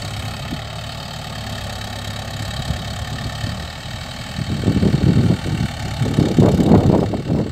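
Mahindra Yuvo 575 DI tractor's diesel engine running steadily as it pulls a tillage implement across a field. About halfway through, wind rumbles roughly on the microphone and grows louder over the engine.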